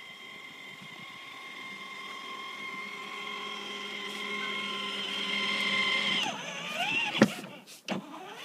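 Battery-powered ride-on toy car's electric drive motor and gearbox whining steadily, growing louder. About six seconds in the pitch slides down and wavers as the motor slows. A sharp click follows about a second later, then another near the end.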